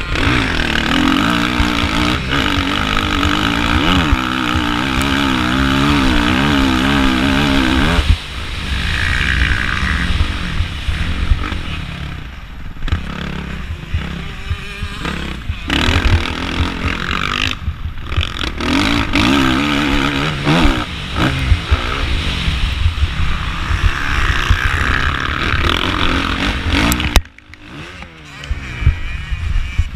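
A 2013 Suzuki RM-Z450's four-stroke single-cylinder engine under hard riding, its pitch rising and falling with throttle and gear changes, as heard from the rider's onboard camera. Near the end the sound drops off sharply for about a second before picking up again.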